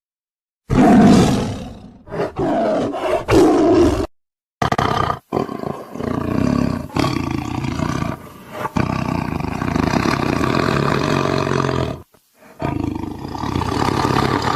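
Tiger roaring and growling in a series of rough calls, split by short silent breaks. The loudest roar comes about a second in, and a long, continuous growl-roar runs through the middle.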